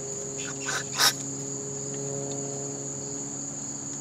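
Steady high-pitched insect trill, like crickets, over a faint low hum, with one short sharp noise about a second in.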